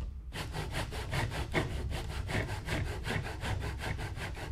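Large handsaw ripping down through a cypress tenon cheek toward the shoulder, in quick, even rasping strokes, about five a second, that start again after a brief pause.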